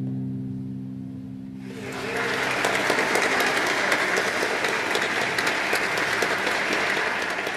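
The last piano chord of the song dies away, and about a second and a half in an audience breaks into steady applause.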